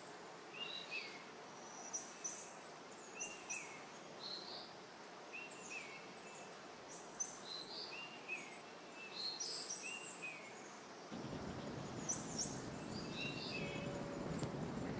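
A songbird repeating the same short, high phrase about once a second, over a steady outdoor hiss. From about eleven seconds in, footsteps on stone steps add a low scuffing.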